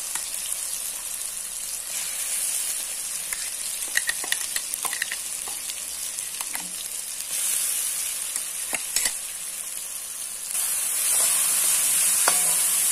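Ground spice paste sizzling in hot oil in a kadai, with a few light clicks; the oil is well heated and the paste is being fried until its raw smell cooks off. A little before the end a metal spoon starts stirring it around the pan and the sizzling gets louder.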